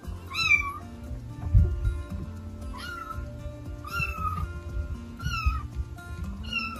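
Tabby kitten mewing five times, short high-pitched calls spaced a second or two apart.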